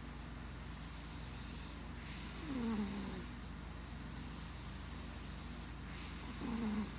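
Snoring: two snores about three and a half seconds apart, each a short sound falling in pitch, over a steady low hum.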